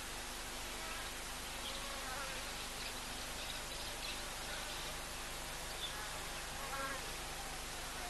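A flying insect buzzing in passes over a steady hiss, about two seconds in and again near the end.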